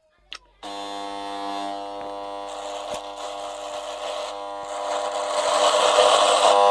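A steady electric-sounding buzz with a stack of overtones, starting after a brief silence and growing louder and hissier over the last couple of seconds: a 3D sound effect played back from a ringtone app.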